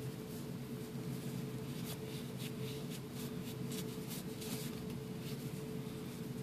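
Microfiber rag rubbing over a Glock pistol's steel slide: faint, irregular soft rubbing with light handling clicks, over a steady low background hum.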